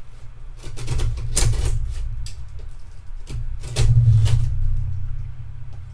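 Cardboard shipping box being worked open with metal tweezers inside a plastic bin: irregular scrapes, taps and rustles of cardboard and tweezers, with a heavier bump about four seconds in.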